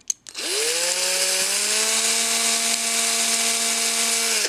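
Small electric hobby drill with a 1.2 mm bit reaming the axle holes of a diecast car base. The motor winds up about half a second in, runs at a steady whine, and cuts off near the end.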